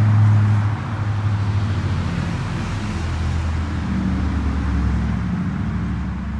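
A motor vehicle engine running close by, a low steady drone that drops in pitch in a few steps.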